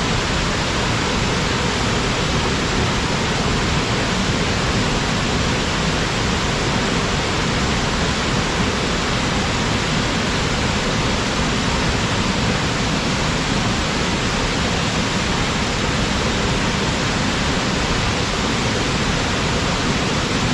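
Waterfall pouring steadily, an even, unbroken rush of water with no change in level.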